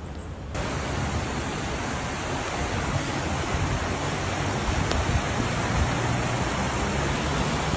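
Brown floodwater rushing across a road, a steady loud noise of fast-moving water. It steps up about half a second in, after a quieter stretch.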